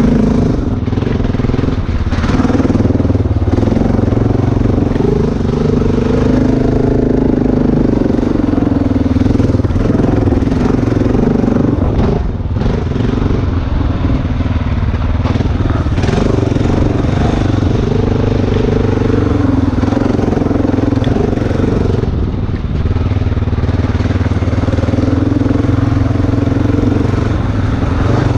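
Dirt bike engine running continuously, its pitch wavering slightly with the throttle.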